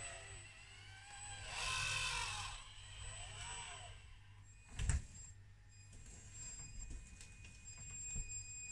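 Faint hum and thin high whine of the RC excavator's small electric slew motor and speed controller as the upper body swings round, with a single knock about five seconds in.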